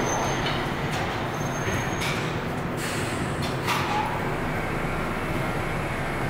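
R62 subway train creeping in and coming to a stop, a steady rumble and hum. A couple of short hisses of air come about two to four seconds in.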